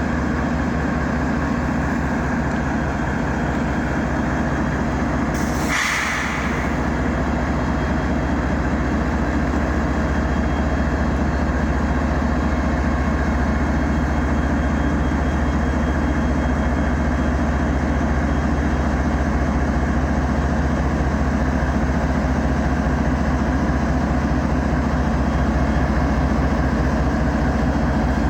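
Diesel locomotive engine running steadily with a low, even throb, with a short burst of hiss about six seconds in.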